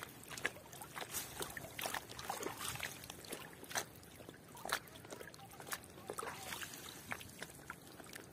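Water dripping and trickling off a nylon gill net as it is hauled up out of the water, with small, irregular splashes.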